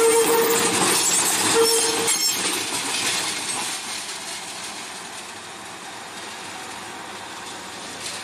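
CC206 diesel-electric locomotive running past and away: its horn sounds at the start and again briefly about a second and a half in, over high wheel squeal. The running noise then fades as the locomotive moves off.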